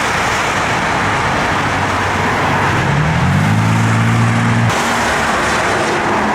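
Road traffic: a steady hiss of passing vehicles, with a car's engine note rising as it speeds up about halfway through, then cutting off suddenly.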